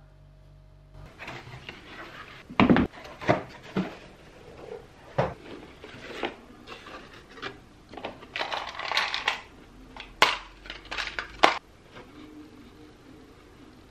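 A cardboard box handled close up: its flaps scrape and rub, with several sharp knocks, and embroidery floss skeins rustle as they are lifted out.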